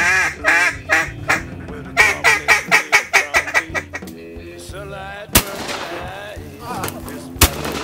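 Two fast runs of duck quacking, each a string of loud quacks that fall away in a descending cadence. These are followed by two shotgun shots about two seconds apart, the first ringing out, all over background music.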